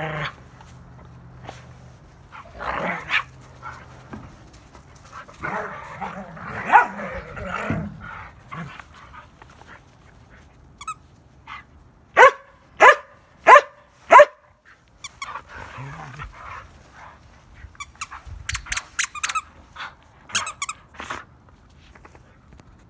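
Dogs at rough play: growling during the first eight seconds, then a dog barks four times, loud and sharp, a little over half a second apart, about twelve seconds in. Near the end comes a flurry of quick, high-pitched sounds.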